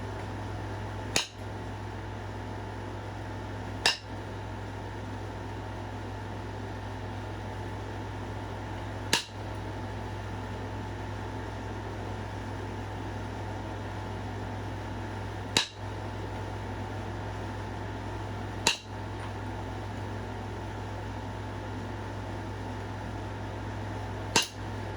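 Flintknapping a stone point: six sharp clicks, irregularly spaced, as flakes snap off the edge. A steady low hum runs underneath.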